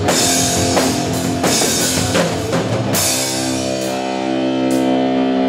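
Rock music with a drum kit and guitar. About three seconds in, the drums drop out and held chords ring on.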